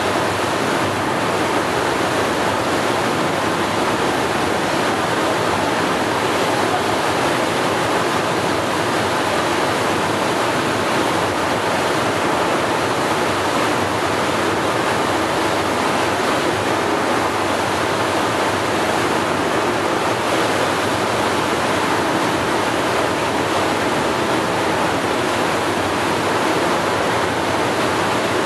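Steady rushing noise of waves and wind, even in level with no rise or fall.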